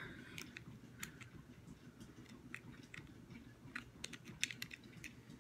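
Faint scattered clicks and rubbing of fingers handling a small plastic GoPro camera body, with a quick cluster of clicks about four seconds in.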